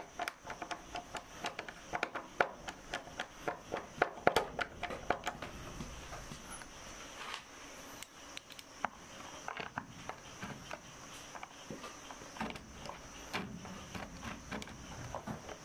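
Screwdriver and fingers working on a plastic wall-mounted socket and breaker plate: irregular small clicks and taps, busiest in the first five seconds and sparser after, with a steady faint high-pitched whine behind.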